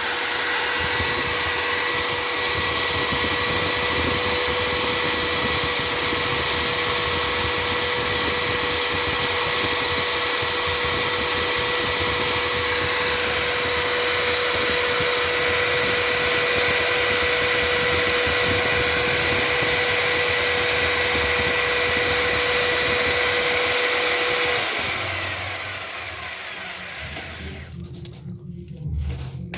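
Electric air blower running at a steady high whine with a rush of air, then switched off about 25 seconds in, its motor winding down with a falling pitch.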